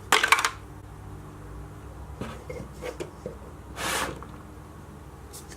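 Small plastic toy food being handled and put away: a short rattling clatter at the start, a few light taps around two to three seconds in, and a brief rustle about four seconds in.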